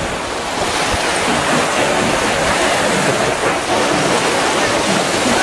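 Small waves breaking and washing up a sandy shore, a steady rush of surf.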